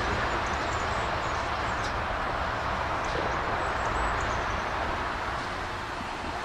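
A train on the move: a steady rushing rumble that eases off a little in the last couple of seconds. Birds chirp faintly over it.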